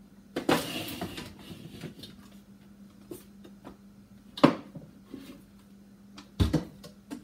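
Kitchen appliances and containers being shifted about on an upper cabinet shelf: a scraping rustle about half a second in, then a sharp knock partway through and a dull thud and knock near the end. A faint steady hum runs underneath.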